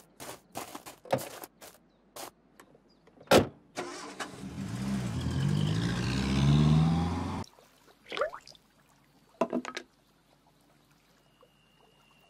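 A few footsteps, then a loud thud as the small yellow van's door shuts. Its engine starts and runs for about three seconds, the pitch wavering, before cutting off suddenly.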